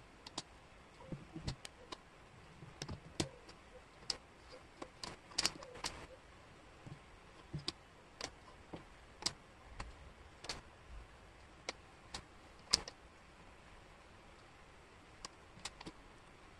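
Wooden jigsaw puzzle pieces clicking and tapping against one another and the table as they are handled and fitted together, in short irregular clicks that thin out near the end.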